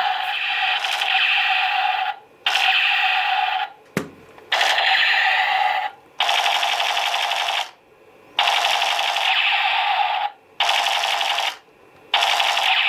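Toy sniper rifle's electronic gunfire sound effect from its built-in speaker: a rapid machine-gun rattle with little bass, played in repeated bursts of one to two seconds with short breaks between them. A single sharp click comes about four seconds in.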